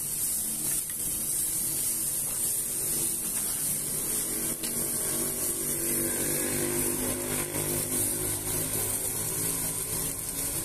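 Chicken sizzling on a hot flat-top griddle, with metal spatulas scraping and tapping on the steel as it is turned and chopped. A low droning hum, like a motor, sets in about four seconds in.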